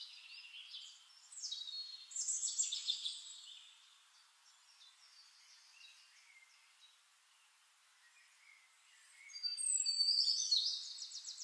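Birds chirping, thin and fairly faint, in two spells: from about a second in to about three and a half seconds, then again from about nine seconds on, with near silence between.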